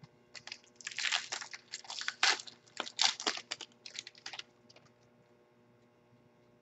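Foil wrapper of a Topps Jumbo football card pack being torn open and crinkled by hand, a rapid run of crackling that stops a little after four seconds in.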